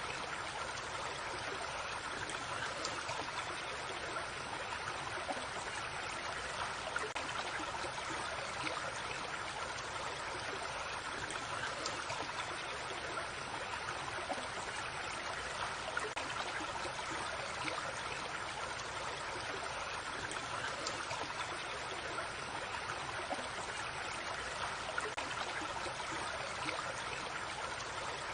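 Creek water flowing steadily over rocks, a constant burble with small trickling splashes.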